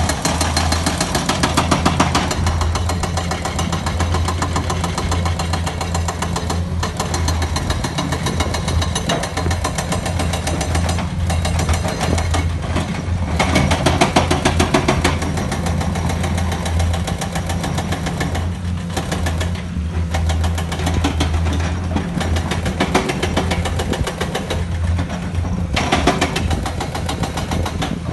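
Hydraulic excavator's diesel engine running steadily with a rapid, even knocking beat. It grows louder and brighter for a few seconds at a time, near the start, around halfway and near the end.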